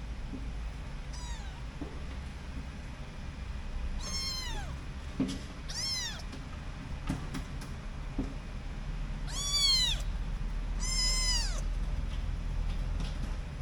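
A kitten meowing: five high-pitched meows, each rising then falling in pitch. The first is faint and the two near the end are the loudest.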